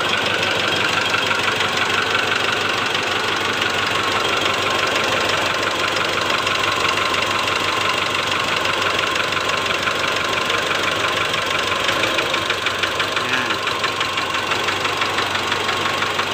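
2008 Mitsubishi Strada Triton GLS four-cylinder diesel engine idling with a steady, fast tak-tak-tak knock, louder with injector No. 1 connected: most likely piston slap in cylinder 1, the piston striking the cylinder wall.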